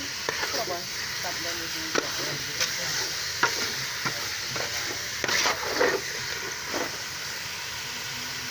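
Beef pieces in spice paste sizzling as they fry in a large metal pot, while a metal ladle stirs them, scraping and clinking against the pot at irregular moments, with a cluster of clinks about five to six seconds in.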